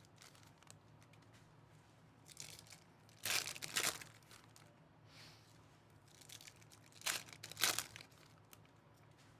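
Foil wrappers of 2023-24 Panini Donruss Optic Basketball hobby packs being torn open and crinkled: a short rip about two seconds in, then two louder bursts about three and a half and seven seconds in.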